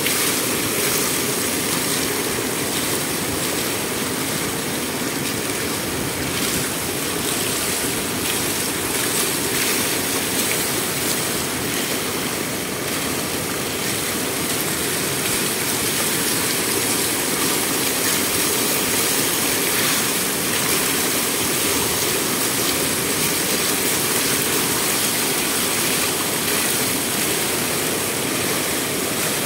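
Water rushing steadily over the edge of a stone sill at a water gate, a constant unbroken flow.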